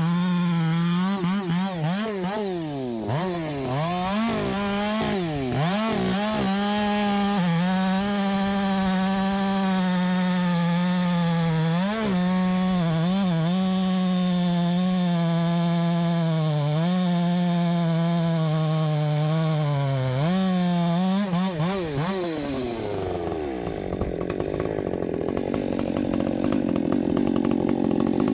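Husqvarna 564XP chainsaw with a 32-inch bar running at full throttle in a cut, its pitch dipping again and again as the chain is pushed into the wood. About 22 seconds in the throttle comes off and the engine speed falls away.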